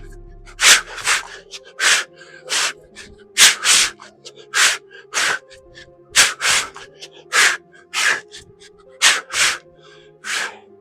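A man breathing hard and forcefully, in short sharp breaths about one and a half a second, often in pairs, from the strain of explosive plyometric exercise. Quiet background music plays underneath.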